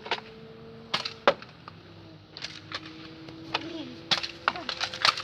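Nerf foam-dart blasters firing in a toy battle: an irregular scatter of sharp snaps and clacks from the blasters and the darts striking.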